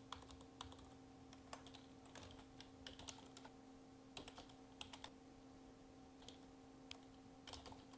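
Faint, irregular keystrokes on a computer keyboard as text is typed, over a low steady hum.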